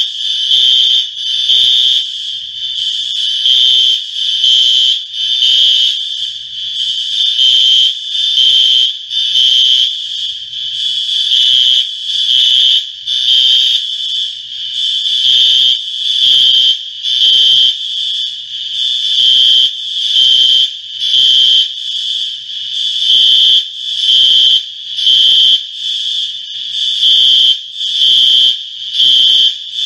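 Apartment building fire alarm sounding: a loud, high-pitched electronic tone pulsing about once a second without a break.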